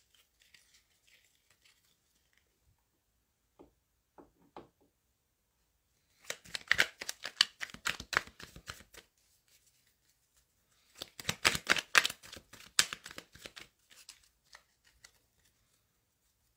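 A deck of tarot cards being shuffled: two runs of rapid card flicks, each about three seconds long, the first about six seconds in and the second about eleven seconds in, with a few soft taps before them.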